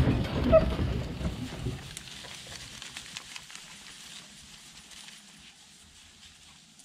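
Deer hounds jumping out of a truck's dog box and bounding off through dry pine straw: a short yelp and rushing footfalls, which fade within about two seconds to a faint rustle as the dogs run away.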